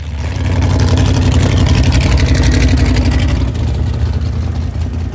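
Rear-engine dragster's engine running at low speed as the car rolls back toward the start line after its burnout, growing louder about half a second in and easing off near the end.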